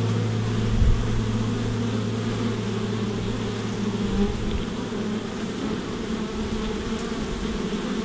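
Many honey bees buzzing steadily at a hive entrance, a dense, even hum, with one brief low thump about a second in.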